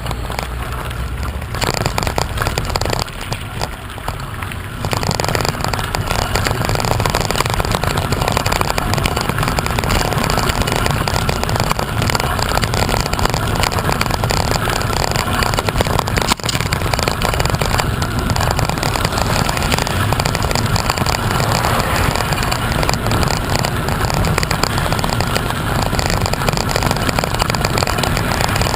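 Steady rushing wind noise buffeting the microphone while on the move, with one brief click about halfway through.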